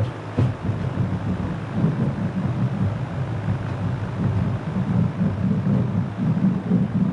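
Wind buffeting the microphone: a loud, irregular low rumble, with a faint click about half a second in.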